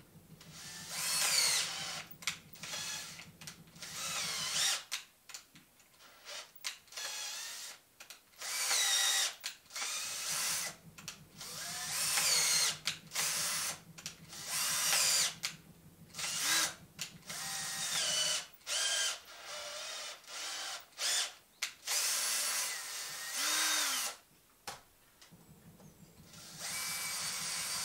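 Bosch cordless drill/driver run in repeated short bursts of a second or two each, its motor pitch climbing and falling within each burst as the trigger is squeezed and eased, with a pause near the end.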